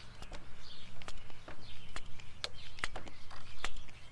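Hand shock pump stroked to pressurise the electric unicycle's air shock, with sharp clicks about twice a second. Birds chirp behind it.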